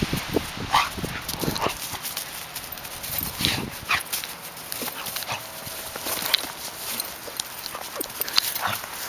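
Coonhound–Labrador mix playing in snow: short, irregular dog sounds scattered among the crunch of paws and boots on snow.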